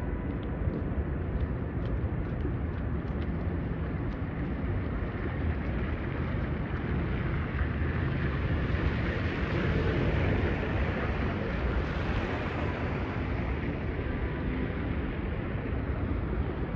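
Wind rumbling on the microphone over steady street traffic noise, swelling a little around the middle.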